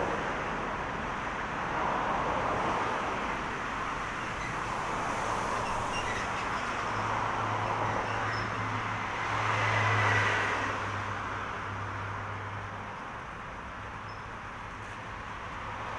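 Road traffic passing below, the tyre noise of cars swelling and fading. A passing vehicle's low engine hum comes in about seven seconds in and is loudest around ten seconds, then fades.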